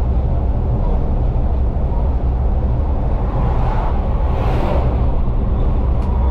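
Scania N250UD double-decker bus with its five-cylinder diesel, heard from the driver's cab while driving at speed: a steady low rumble of engine and tyres. About four seconds in, an oncoming lorry passes with a rising and fading whoosh.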